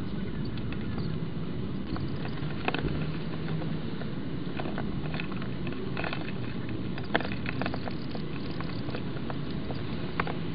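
Sped-up nest-box microphone sound: a steady background hum and hiss with scattered sharp taps and scrapes as common kestrel chicks move about on the nest-box floor, the loudest a single click about seven seconds in.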